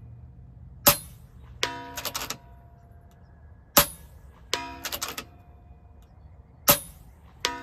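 FX Impact M3 precharged pneumatic air rifle firing three shots about three seconds apart, each a sharp crack. Each shot is followed under a second later by a short ringing clatter as the pellet strikes the steel target at 110 yards.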